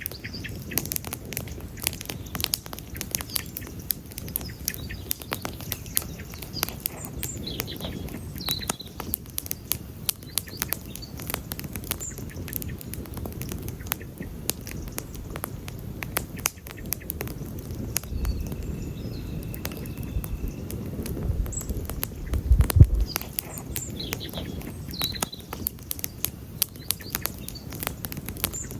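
Wood campfire crackling and popping steadily over a low rumble of flames. Birds chirp briefly now and then.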